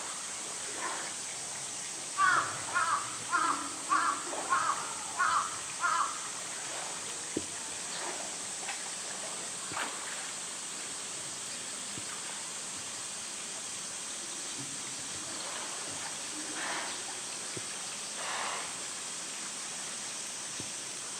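A bird calling in a quick run of about seven short, evenly spaced calls, starting about two seconds in, over a steady outdoor background hiss.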